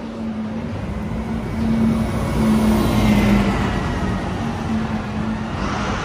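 A motor vehicle passing on a city street: a steady engine hum over traffic noise, growing louder about two to three seconds in and then easing off.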